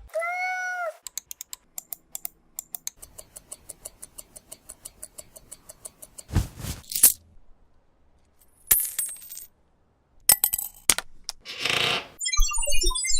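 A run of separate short sound effects: a brief rising-and-falling pitched call, then several seconds of rapid, evenly spaced clicking, a few short whooshes and clicks, and near the end a quick run of short beeping notes.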